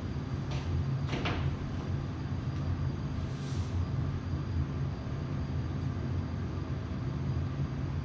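Steady low mechanical rumble of a running motor, with a couple of light clicks about a second in and a brief hiss at about three and a half seconds.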